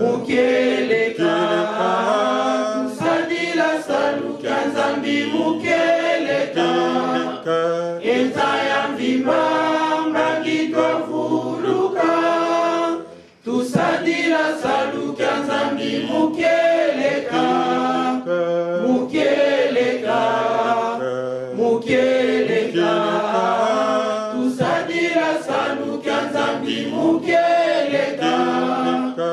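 A woman singing a worship song into a microphone, holding and gliding between notes, with a short break about thirteen seconds in.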